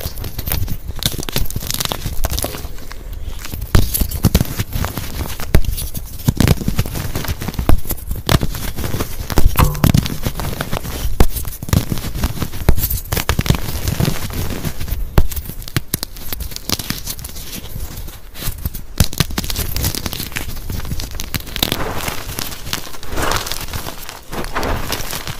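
Blocks of dyed gym chalk being crushed and crumbled by hand: continuous crunchy crackling, with frequent sharp snaps as chunks break apart in the fingers.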